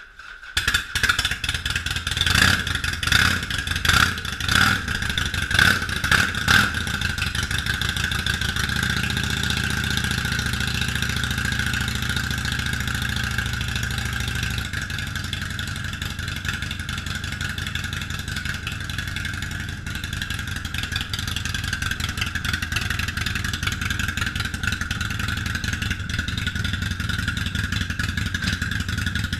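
Harley-Davidson Sportster Forty-Eight Special's air-cooled V-twin with Vance & Hines Short Shots exhaust starting up, blipped about six times, then settling into a steady idle that eases down a little about halfway through.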